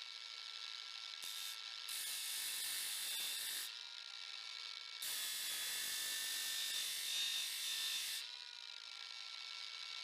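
Blade of a cheap multi-tool being sharpened, drawn across a sharpener in long rasping strokes: a short one about a second in, then one of almost two seconds and one of about three seconds.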